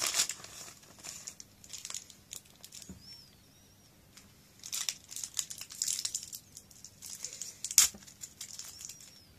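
Crinkling candy wrappers, coming in bursts, as individually wrapped Melty Kiss chocolates are taken from their bag and unwrapped by hand, with one sharp, loud crackle about eight seconds in.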